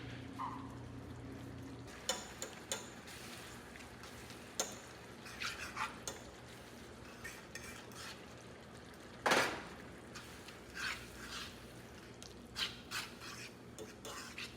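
Kitchen cooking sounds: utensils clinking and scraping against pots and dishes in scattered short clatters, the loudest about nine seconds in. A low steady hum stops about two seconds in.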